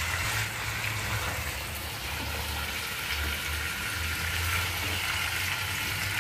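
Marinated chicken pieces sizzling steadily in hot mustard oil and spice paste in a heavy pan as they are stirred, at the low-heat roasting (bhuna) stage where the masala coats the meat.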